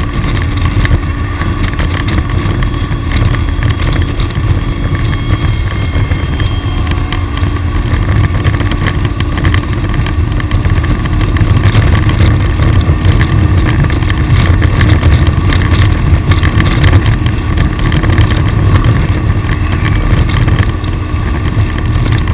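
Vehicle engine running steadily on the move in a road convoy, with a heavy, even low rumble of engine and road noise and many short gusts and clatters over it.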